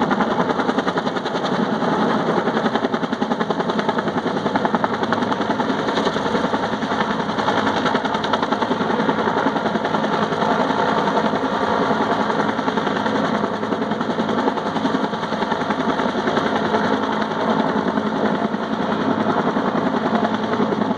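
Helicopter hovering and manoeuvring with a telephone pole slung on a long line, its main rotor beating in a fast, even chop.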